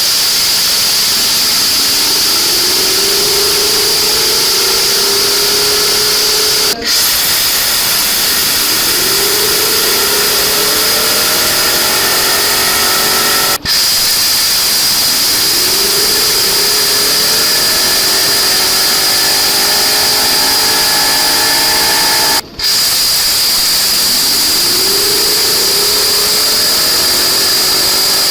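Homemade jet engine's shaft and axial compressor spinning up: a whine that rises in pitch and then levels off, over a loud steady hiss of rushing air. The spin-up is heard four times, with abrupt cuts between.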